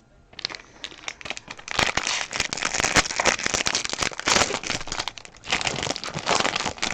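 Foil wrapper of a baseball card pack crinkling and crackling as it is handled, starting about half a second in.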